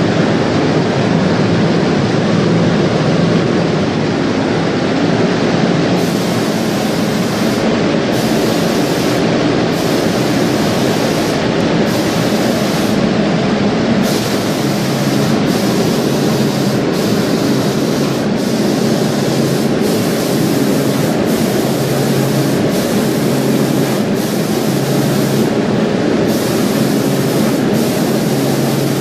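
Automatic marble spray-painting machine running: a steady, loud mechanical noise with a low hum underneath.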